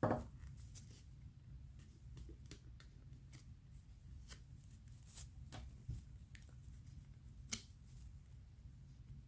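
Faint rustling and light taps of cardstock being handled and pressed together while a glued paper box is assembled. There are scattered small clicks, a sharper one about seven and a half seconds in, over a low steady hum.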